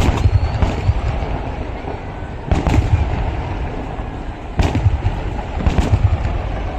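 Fireworks display going off in a dense barrage: a continuous rumble of explosions, with about five sharp, louder bangs on top, the strongest about two and a half and four and a half seconds in.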